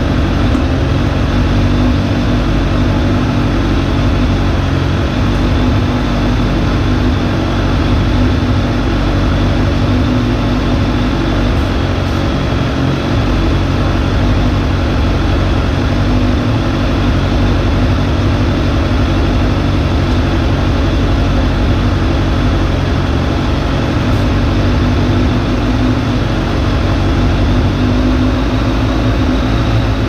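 Suzuki GSF600 Bandit's inline-four engine idling steadily at a low idle. The owner suspects a vacuum leak at one of the carburetor intake boots and takes the idle mixture screws to be set too rich.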